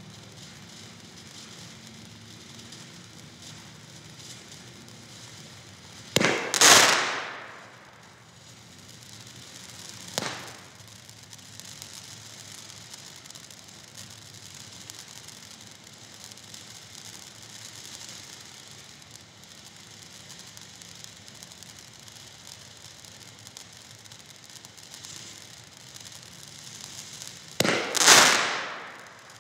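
Black Cat 100 Foot Fountain firework spraying sparks with a steady hiss and crackle. It gives two loud sudden surges that fade over a second or so, one about six seconds in and one near the end as it shoots a tall column of sparks, and a short sharp pop about ten seconds in.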